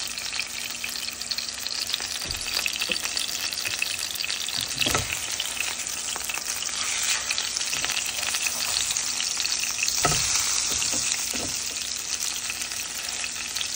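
Tuna steaks sizzling in hot oil in a frying pan, a steady crackling hiss, with a few knocks of the spatula against the pan as a steak is turned.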